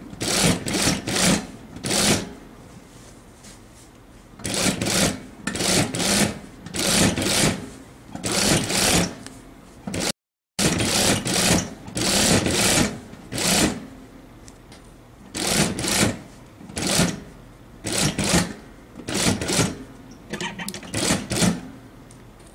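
Unicorn industrial sewing machine stitching in short stop-start bursts, about a dozen runs each under a second with brief pauses between, as fabric is guided along a 0.5 cm topstitch.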